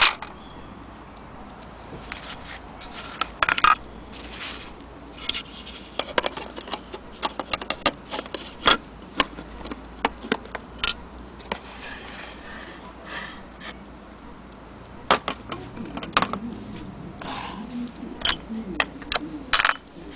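Irregular clicks, knocks and scrapes of a small wooden mantle clock case and its small metal parts being handled.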